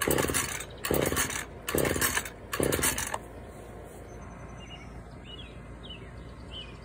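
Four quick pulls on a gas chainsaw's recoil starter cord, about one a second, each a short whirring rasp as the cord runs out and the two-stroke engine turns over. The engine never fires: the saw fails to start.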